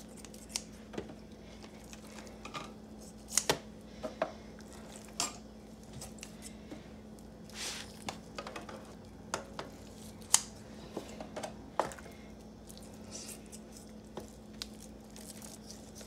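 Kitchen shears snipping excess fat off raw pork spare ribs: irregular sharp snips and clicks of the blades, about a dozen scattered through the stretch, with handling of the meat in a foil pan between them.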